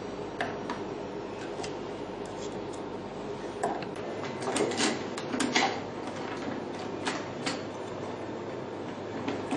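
Irregular light clicks and knocks of hard plastic and metal parts being handled as a PDT light arm is fitted into a hydrofacial beauty machine and its fixing screw tightened, over a steady faint hiss.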